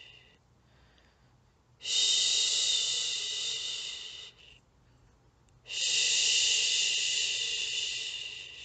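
A woman shushing, a long soothing 'shhhh' repeated to lull a baby to sleep. Two shushes of about two and a half seconds each, each starting sharply and tapering off, with short quiet pauses between them and the fading end of a previous shush at the start.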